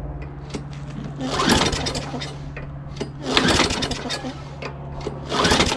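Recoil starter on a Craftsman push mower's Tecumseh engine pulled three times, about two seconds apart, the engine cranking over without firing. It will not start even with the kill wire off; a compression test later puts the cause down to low compression.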